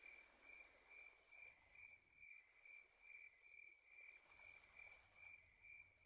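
Near silence, with faint, even chirping like an insect's in the background, about two chirps a second.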